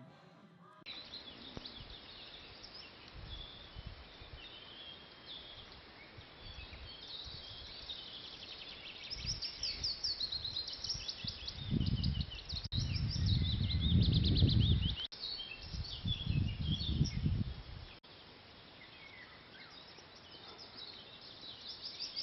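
Songbirds singing and chirping, many short trills overlapping. Around the middle, gusts of wind rumble on the microphone for a few seconds and are the loudest sound.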